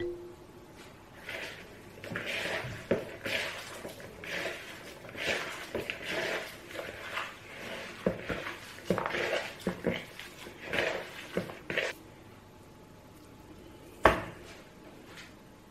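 Hands squishing and kneading raw lamb mince with spices in a plastic bowl: an irregular run of wet squelches that stops a couple of seconds before the end, then one sharp knock near the end, the loudest sound.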